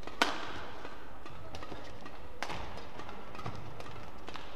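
Badminton rackets striking a shuttlecock in a fast doubles rally: a loud, sharp smash about a quarter second in, another crisp hit a little over two seconds later, and lighter knocks between, over a steady hall background.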